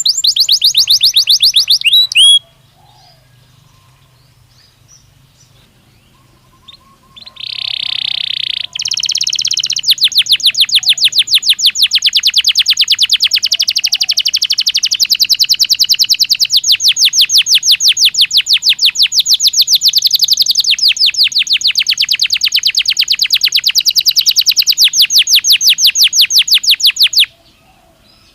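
Belgian canary singing: a quick trill, a pause, a brief rolling note, then a long, loud run of rapid, evenly repeated notes that stops abruptly near the end.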